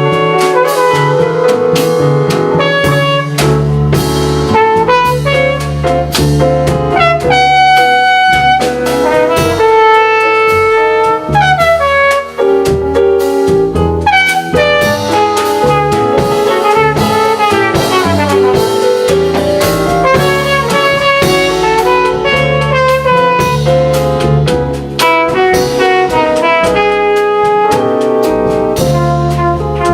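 Jazz quartet playing live: a brass horn carries the melody over piano, upright bass and a drum kit with cymbals.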